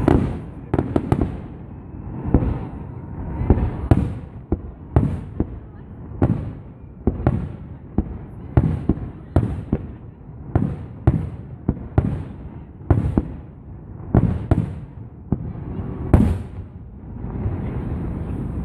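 Aerial fireworks shells bursting one after another, a sharp bang somewhat more than once a second, each with a short echoing tail.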